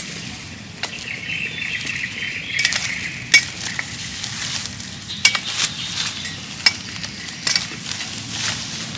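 Large cleaver-style knife chopping at green plant stems: about eight sharp chops at irregular intervals, the loudest a little over three seconds in.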